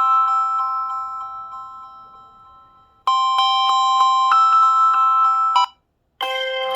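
LG G5 ringtones: a melody of quick repeated chiming notes fades away, starts over about three seconds in, and is cut off abruptly. After half a second of silence, a different ringtone with plucked-string notes begins near the end.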